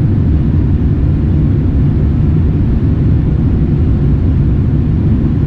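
Steady low rumble inside the cabin of a Boeing 787-9 airliner: engine and airflow noise, even in level throughout.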